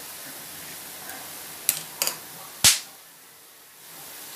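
Boondi (gram-flour batter drops) deep-frying in a kadai of hot oil with a steady sizzle, broken by three sharp cracks in quick succession about halfway through, the last one loudest.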